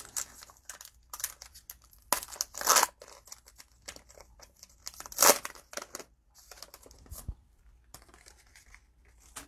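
Cellophane trading-card pack wrapper crinkling and tearing in short, irregular bursts as a pack is opened, loudest about two to three seconds in and again about five seconds in.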